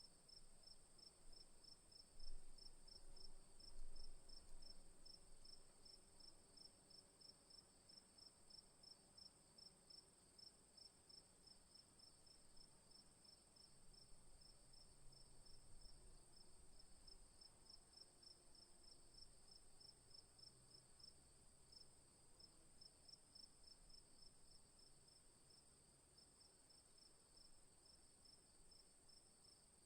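Crickets chirping faintly: one steady high trill with, just below it, a rapid, evenly repeated pulse of chirps.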